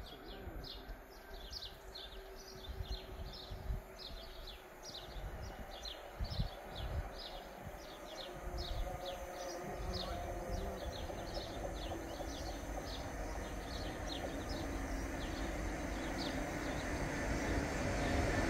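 GB Railfreight Class 66 diesel locomotive, with its two-stroke V12 engine, approaching at the head of a container freight train. Its low rumble grows steadily louder over the second half. A small bird chirps repeatedly throughout, about two calls a second, and wind buffets the microphone in the first half.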